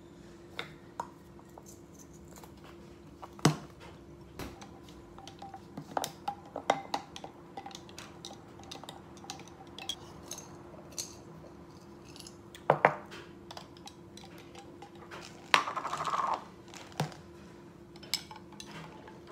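Scattered sharp clicks and clinks of small kitchen things handled at a counter: plastic caps and jar lids opened and set down, and ice and a metal straw knocking against a pint glass, with a short rattle a little after the middle. A faint steady hum runs underneath.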